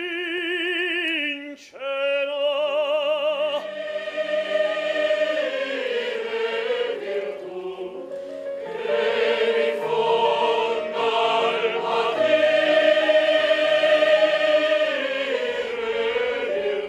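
A male operatic soloist sings with a wide vibrato, breaking off briefly, then a mixed choir joins about four seconds in and they sing on together, growing louder near the end.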